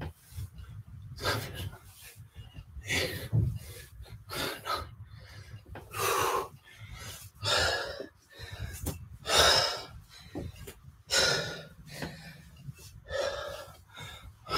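A man breathing hard from exertion during kettlebell reps, with a loud, forceful exhale about every one and a half to two seconds.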